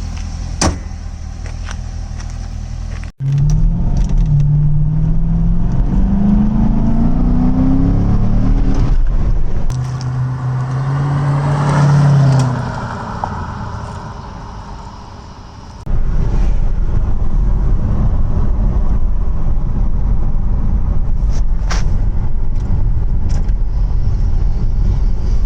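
Chevrolet Corvette C6's 6.2-litre LS3 V8 running, then accelerating hard: its pitch climbs and drops back several times as it shifts up, holds, then falls away. In the second half comes a loud, steady low rumble of road and wind noise.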